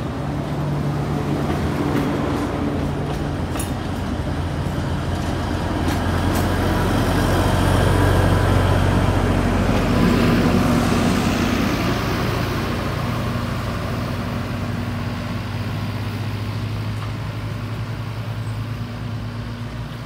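A narrow-gauge forest railway train passing at close range: the passenger cars roll by with a few wheel clicks, then the diesel locomotive's engine drones past, loudest about halfway through, and fades off.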